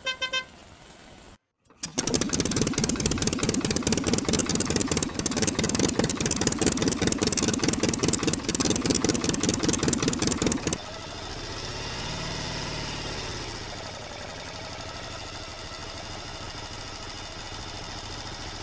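Engine sounds for toy vehicles: a short beep, then about nine seconds of loud, rapid, even engine clatter that changes about eleven seconds in to a softer, steadier engine hum whose pitch rises and falls.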